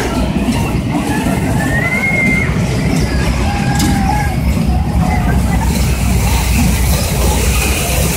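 Small amusement-park kiddie train running on its circular track, giving a steady low rumble. A few faint high children's voices sound over it.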